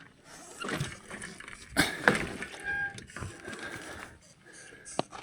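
Loaded touring bicycle being handled on a rocky hike-a-bike trail: irregular knocks, clicks and rattles, loudest about two seconds in, with a sharp click near the end.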